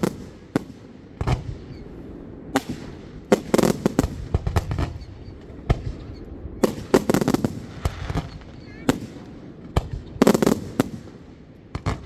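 Fireworks going off: a run of sharp bangs and crackling, coming in clusters a few seconds apart.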